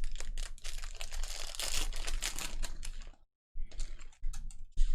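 Trading cards being flipped through and handled: a quick run of light clicks and rustles for about three seconds, a brief pause, then more clicking.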